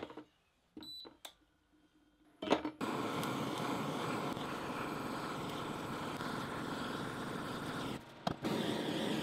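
A short electronic beep, then from about two and a half seconds in a handheld butane torch running with a steady hiss of flame, playing onto aluminium foil in a cast-iron pot to melt it. The hiss drops out briefly near the end and comes back.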